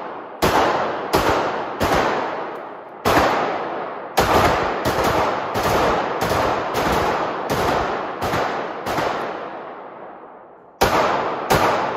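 9mm Ruger MAX-9 compact pistol firing a long string of single shots, each with a long echoing tail off the walls of an indoor range. The shots come slowly at first, then about two a second. After a pause of about two seconds near the end, the firing starts again.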